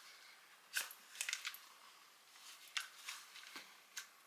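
Faint plastic clicks and scrapes from the cap of a car air-freshener spray being twisted and pried at, in short scattered bursts, as the cap refuses to come open.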